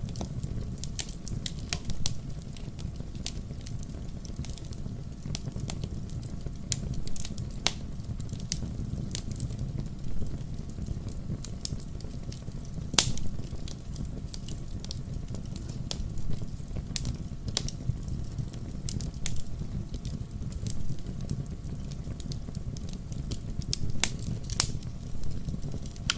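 Wood fire burning in a fireplace: a steady low rumble of the flames with irregular sharp crackles and pops, a few louder snaps about halfway through and near the end.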